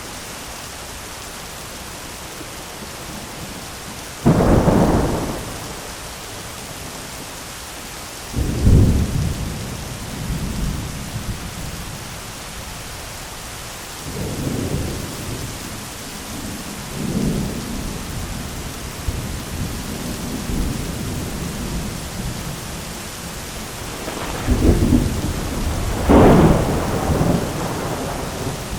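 Heavy rain falling steadily on an umbrella, with thunder: a sudden loud clap about four seconds in, then several more rolling rumbles, the longest near the end.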